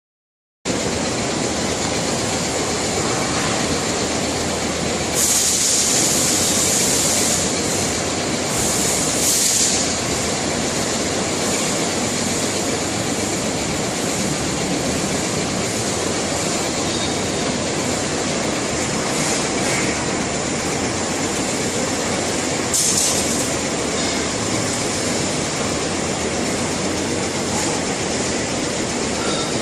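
A machine running steadily, likely the binding-strip cutting machine, with a constant rumble and hiss that starts abruptly about half a second in. Brief louder hissing surges come at about 5 and 9 seconds in and again near 23 seconds.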